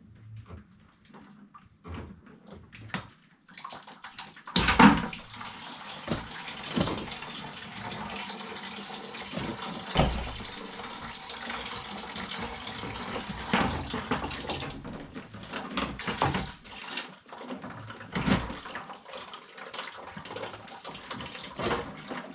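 Water running out of an opened copper water line in a steady stream, starting with a loud knock about four seconds in. Scattered knocks and clatter of work on the pipe sound over the flow.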